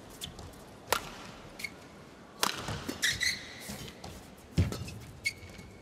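Badminton rally: sharp racket hits on the shuttlecock, the loudest about two and a half and four and a half seconds in, with short high squeaks of court shoes between them.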